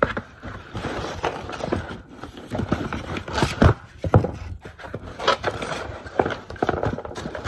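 Handling noise from an AR-15-style pistol: irregular clicks, clacks and rubbing of metal and polymer parts, with two sharp knocks about three and a half and four seconds in.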